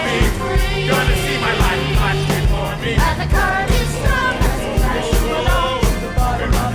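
Upbeat background music with a steady drum beat, about two beats a second, and a singing voice.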